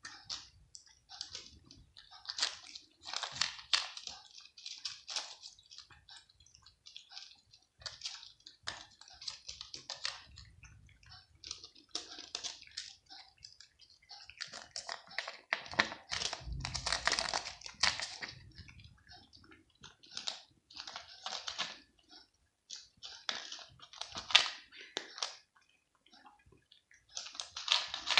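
A cat eating dry kibble up close, its teeth crunching the pellets. The crunches come in irregular runs of crisp clicks with short pauses between mouthfuls, with a longer unbroken run past the middle.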